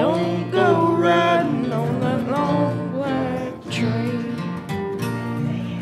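Acoustic guitar strummed under sung vocals with a wavering, held voice, the end of a country gospel song.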